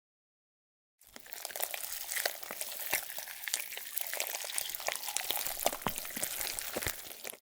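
Close crackling and crinkling full of tiny clicks from small-scale food preparation, starting about a second in and cutting off abruptly near the end.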